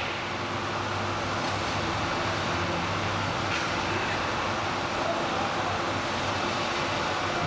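Ring-system granite block cutting machine running: a continuous, steady mechanical noise with a low hum underneath.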